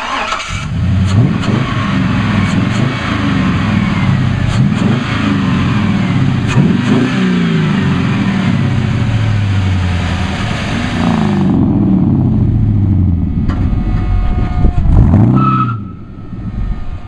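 Fuel-injected 5.3-litre V8 from a 2001 Tahoe, swapped into a 1970 Chevrolet C10 pickup, running and being revved again and again. The pitch rises and falls with each blip of the throttle.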